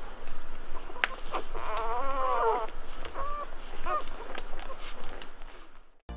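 Newborn golden retriever puppies whining and squeaking: one long wavering whine about two seconds in, then a few short squeaks.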